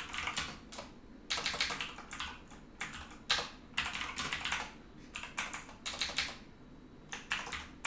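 Typing on a computer keyboard: short bursts of quick keystrokes with brief pauses between them.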